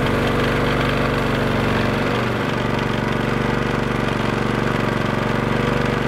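Fishing boat's engine running steadily, a constant hum with a fast, even pulse.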